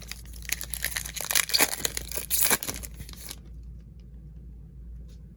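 Wrapper of a 2021 Score football card pack being torn open and crinkled for about three seconds.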